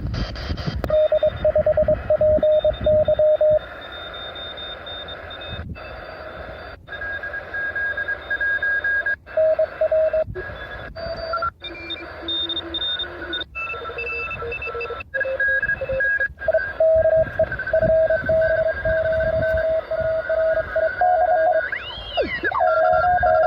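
Amateur radio receiver tuned to the 20-metre band, picking up several Morse code (CW) stations at once: keyed beeps at different pitches, some high and some low, over a steady hiss. The audio cuts out briefly several times, and near the end a whistle sweeps up in pitch and back down.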